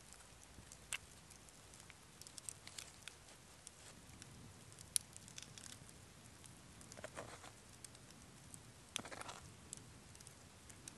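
Quiet, close food-handling sounds: scattered small clicks and, twice, a short soft rustle as diced onion is dropped onto sausages on a wooden plate.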